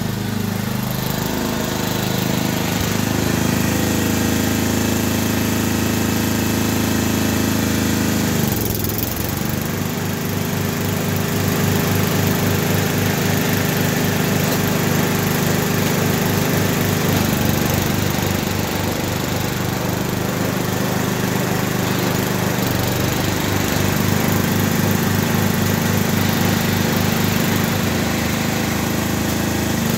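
Riding lawn mower's small engine running under way, its note dropping briefly about eight seconds in, then running steadily.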